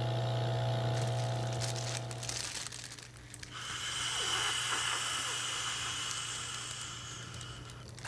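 A low steady hum that stops about two and a half seconds in, then the clear plastic balloon bag of a cannabis vaporizer crinkling with a hiss of air as vapour is inhaled from it.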